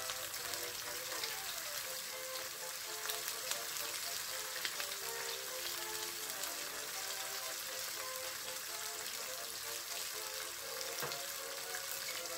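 Thin sauce with sautéed garlic and onion sizzling in a non-stick wok: a steady hiss with small crackles. Soft background music plays along.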